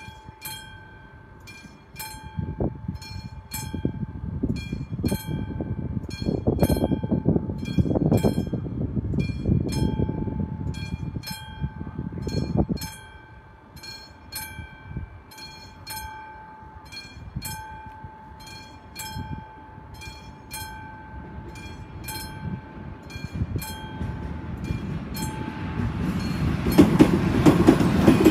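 Level-crossing warning bell ringing steadily, a little faster than once a second, while the crossing's red lights flash for an approaching train. A low rumble comes and goes in the first half. Near the end a locomotive-hauled passenger train's rumble rises quickly to the loudest point as it runs over the crossing.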